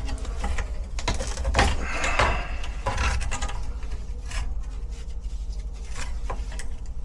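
Small clicks, knocks and scrapes of gloved hands and pliers working the wire connectors on a furnace fan relay control board, with a brief rustling scrape about two seconds in. A steady low hum runs underneath.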